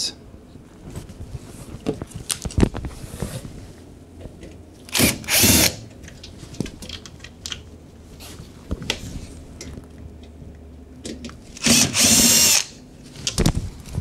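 Cordless drill-driver backing out the two screws that hold a washing machine's top panel. The motor runs in two short bursts, about five seconds in and again about twelve seconds in, each under a second long, with small clicks and handling knocks between.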